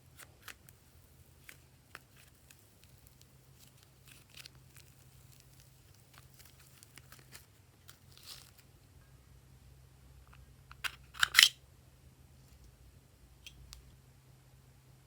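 Glossy slime being worked by hand: scattered soft clicks and small pops, with a louder cluster of sharp crackling clicks about eleven seconds in.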